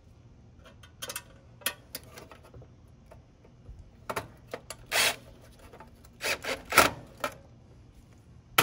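Cordless drill driving the screw that holds the AC condenser's run capacitor in its metal mounting bracket, in several short bursts with metal scraping on metal. A sharp knock comes right at the end.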